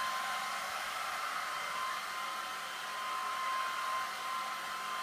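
Hair dryer running steadily, a constant rushing blow with a steady whine, used as soothing background noise to lull a baby to sleep.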